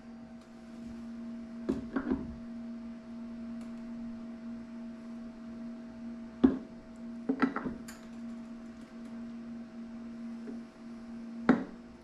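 Hand injector and aluminum bait mold knocking together in a handful of sharp clicks, the loudest about halfway through, as liquid soft plastic is shot into the mold. A steady electrical hum runs underneath.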